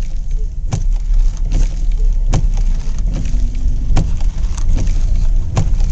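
Low, steady rumble of a vehicle driving slowly, heard from inside the cab, with a sharp clunk of the windshield wipers about every second and a half.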